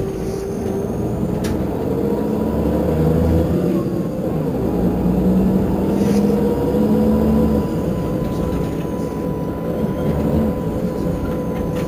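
Irisbus Crossway coach's engine idling steadily while the bus stands still, with a thin steady whine above the engine note.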